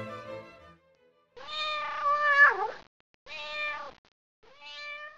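A domestic cat meowing three times: a long, loud meow that dips in pitch at its end, a shorter meow, then a wavering meow near the end.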